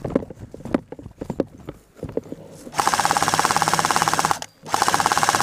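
Airsoft electric gun firing on full auto, close by: a long rapid burst starting about halfway through, a brief pause, then a second burst. Before it, scattered knocks and rustles of gear and movement.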